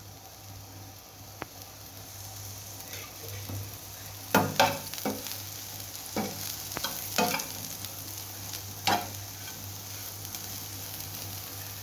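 Soybean chunks frying in oil in a pan with a steady sizzle, being roasted until reddish. A spatula stirs them, scraping and knocking against the pan in a run of about seven strokes from about four to nine seconds in.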